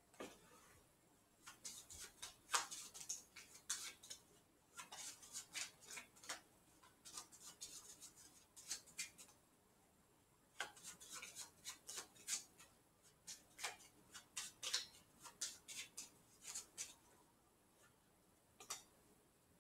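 A deck of playing cards being handled: a long run of quick, irregular light clicks and snaps of the cards, with a couple of short pauses.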